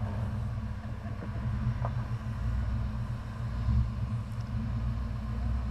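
Rock crawler's engine running at low revs, a steady low rumble that swells slightly midway.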